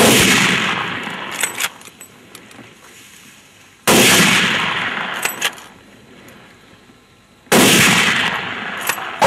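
Three gunshots from a hunter's gun, about four seconds apart, each followed by a long echo that dies away over a few seconds.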